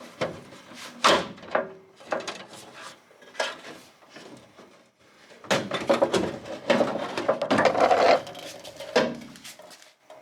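Metal clicks, knocks and rattling of a tool box's ball-bearing drawer slide being lifted and worked free of its clips, with a denser run of clattering from about five and a half to nine seconds in.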